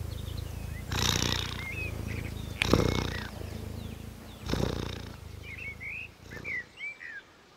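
A sleeping cat purring, with a louder rush about every second and a half to two seconds in time with its breathing; the purring stops about six seconds in. Faint bird chirps sound twice, the second time near the end.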